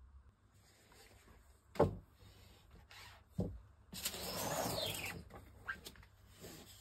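Two dull knocks, then a rubber squeegee scraping across the ink-loaded mesh of a print screen for about a second, followed by a few light ticks.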